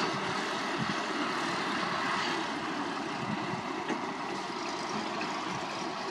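Diesel engines of a wheel loader and dump trucks running at a distance, a steady mix of engine noise with a few faint low knocks.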